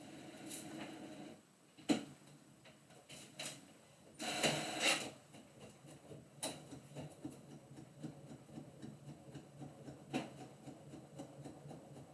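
Home printer-copier running a copy job: a steady mechanical whir with sharp clicks now and then and a louder rush lasting about a second, about four seconds in.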